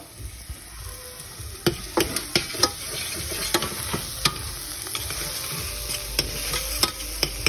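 Food sizzling as it fries, with a spoon scraping and clicking irregularly against the steel pot as the contents are stirred.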